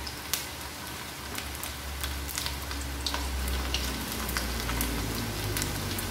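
Sliced tempe sticks deep-frying in hot oil in a wok: a steady sizzle with many scattered sharp crackles and pops, over a low steady hum.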